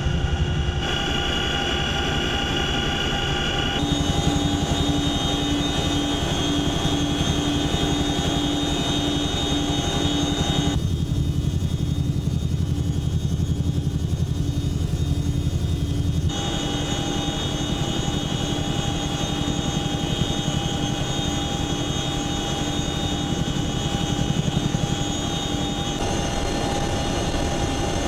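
A Boeing CH-47F Chinook tandem-rotor helicopter in flight, with its twin Lycoming T55 turboshaft engines running: a steady, loud rotor and turbine noise with a pulsing tone through most of it. The character of the sound changes abruptly several times.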